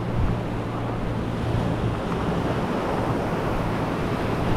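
Ocean surf washing against the jetty, with wind buffeting the microphone and a low steady hum underneath.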